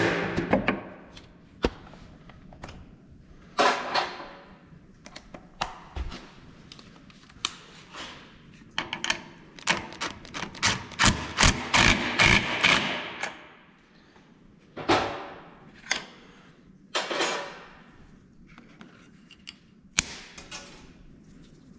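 Hand tools and metal parts knocking and clicking during mechanical work on a skid steer, with scattered sharp taps and several short rattling, scraping bursts.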